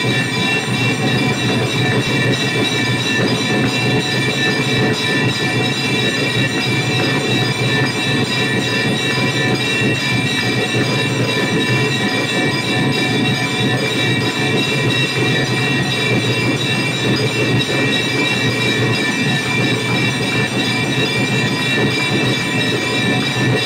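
Large brass hanging temple bell rung continuously by hand, its strokes running together into a steady, unbroken metallic ringing.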